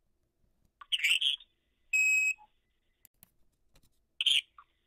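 Odd electronic sounds on a phone-line recording: a short hissy, warbling chirp about a second in, then a steady high beep, and the chirp again near the end.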